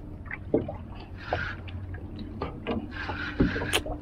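Sea water sloshing against the hull of a small open boat, swelling twice, with scattered light knocks and a faint steady hum beneath.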